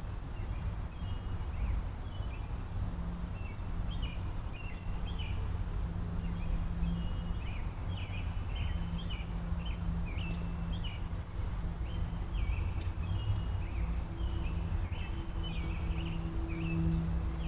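Birds chirping in the trees, quick short notes repeated over and over, over a steady low rumble with a faint droning hum.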